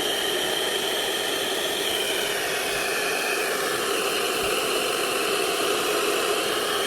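Handheld hair dryer blowing steadily on a wig's lace to dry the freshly applied product: a continuous rush of air with a high motor whine that wavers slightly in pitch.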